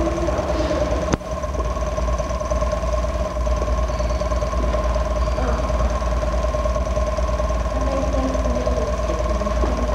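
Steady mechanical whirr of a film projector running, with a constant hum under it. There is a single sharp click about a second in.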